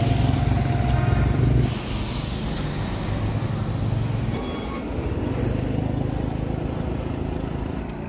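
Steady low outdoor rumble, with a faint steady high-pitched tone over most of it and a couple of brief faint pitched sounds.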